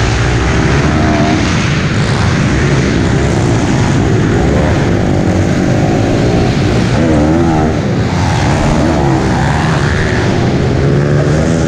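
Piranha P190R pit bike's four-stroke single-cylinder engine run hard around a dirt track, heard from on the bike, its pitch rising and falling again and again as the throttle is opened and rolled off through the turns. Other pit bike engines run alongside.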